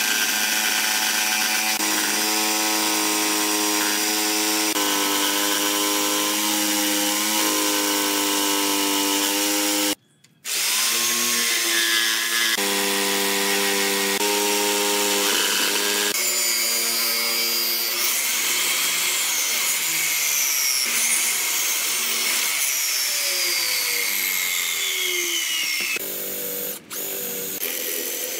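Electric jigsaw cutting a curve in a wooden board, its motor running steadily. It stops for a moment about a third of the way in, then starts again. Near the end a power drill with a spade bit bores into the board.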